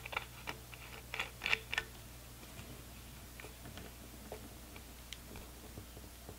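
Faint clicks and ticks of a chrome compression fitting being screwed by hand onto a 90-degree metal adapter on a pump top, most of them in the first two seconds and only a few scattered ticks after.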